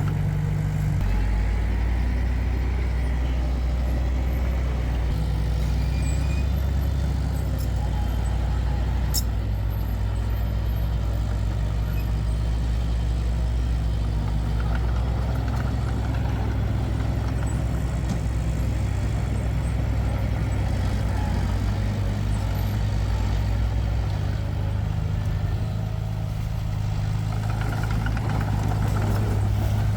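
Heavy diesel construction machinery running steadily, a low engine drone. Its note drops about a second in and rises again in the last few seconds.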